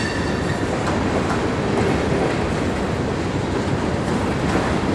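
Freight train's boxcars rolling past at close range: a steady rumble of steel wheels on rail, with a few faint clicks as wheels cross rail joints.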